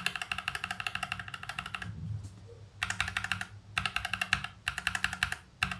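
Mechanical keyboard fitted with Akko ASA-profile PBT double-shot keycaps, typed rapidly across the middle row, with its case and PCB fully foam-dampened. It starts with a run of quick key clacks lasting about two seconds, and after a short pause come three or four shorter runs of rapid presses. The tester hears the ASA caps as a little more ringing than FSA caps.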